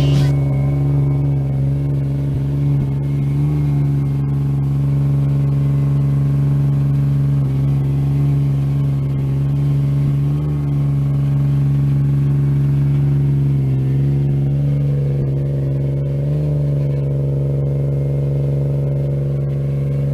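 Single-turbo Nissan VQ35DE V6 of an Infiniti G35 running on a chassis dyno, held at a steady speed with a steady drone that swells briefly a few times.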